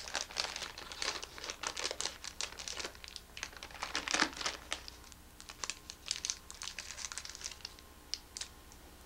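Plastic wrappers of individually wrapped gummy candies crinkling and tearing as they are opened. The crackling is dense for the first few seconds, then thins to scattered crackles.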